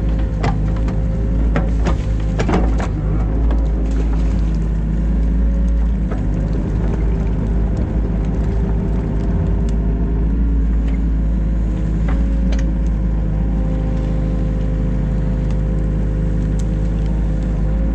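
New Holland Kobelco E50.2 compact excavator's diesel engine running steadily under load, heard from the cab. A few sharp knocks and clicks, several in the first three seconds and one about twelve seconds in.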